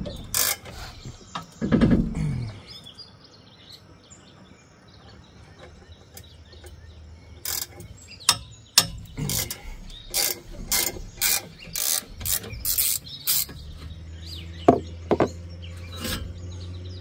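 Wrench work on a truck's exhaust pipe joint: a run of sharp metallic clicks, about two a second, lasting several seconds, after a couple of dull thumps near the start. A low steady hum comes in near the end.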